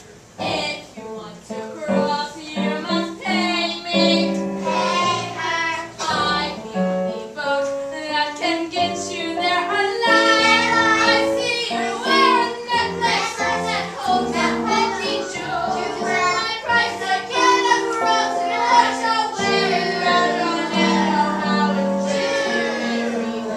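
Young female cast members singing a musical-theatre number together, with instrumental accompaniment.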